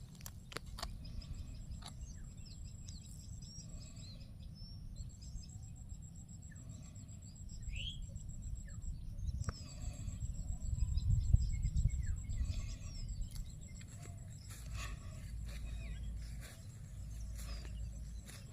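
Rural outdoor ambience: small birds chirping in short scattered calls over an insect's steady high, rapid pulsing trill. A low rumble underlies it and swells about eleven seconds in.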